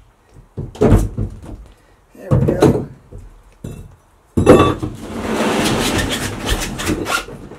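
A pry bar knocking against the aluminum boat's carpeted wooden floor panel three times as it is worked loose. Then a loud bang about four and a half seconds in as the panel comes free, followed by a couple of seconds of scraping and rattling as it is lifted and slid over the deck.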